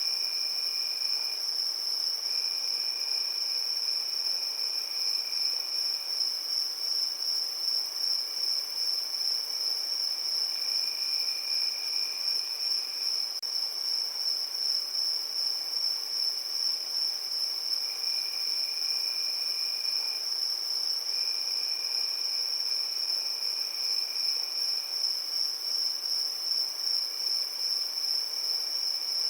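Crickets chirping in a steady evening chorus, with one continuous high-pitched trill. A second, lower trill comes and goes in stretches of a second or two.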